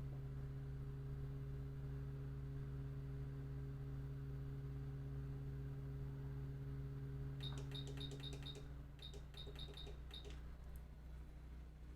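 Steady electrical hum from electronics-repair bench equipment; about seven and a half seconds in, a quick run of short high electronic beeps, about four a second with a brief pause, and the hum drops a little partway through.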